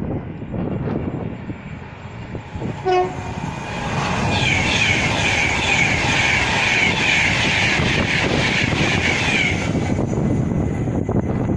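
A train passes through the station at speed, a loud rushing and rattling with a rhythmic beat about twice a second that builds after a few seconds and eases off near the end. It is preceded by a short horn toot about three seconds in.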